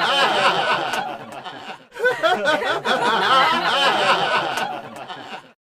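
Several people laughing and chattering excitedly, dropping off briefly about two seconds in, then cutting off suddenly near the end.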